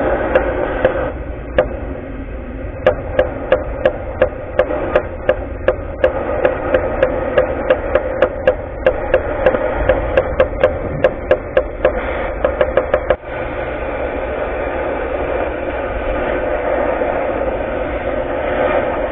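Oxy-fuel cutting torch hissing steadily as its flame is worked onto a truck's leaf spring. Sharp knocks come about twice a second for the first dozen seconds and stop abruptly.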